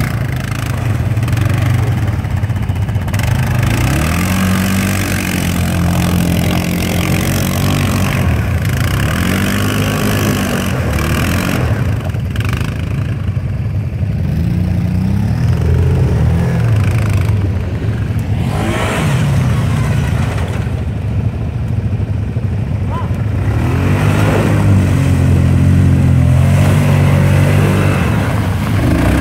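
Quad ATV engine revving up and down repeatedly as the machine churns through water and broken ice, with splashing and clattering ice slabs.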